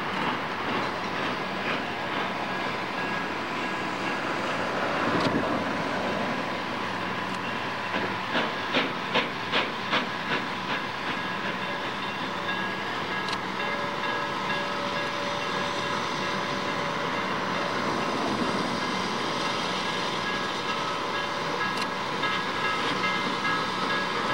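Norfolk and Western steam locomotive running, with steady steam hiss and a run of about six evenly spaced knocks around eight to ten seconds in.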